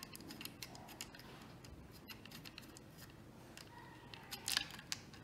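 Faint small metal clicks and ticks of a folding hex-key multi-tool and a small nut being handled as the nut is taken off an electric scooter's handlebar controller, with a short run of louder clicks a little over four seconds in.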